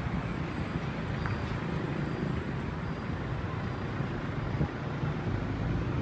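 Steady low rumble of city traffic, with no distinct events.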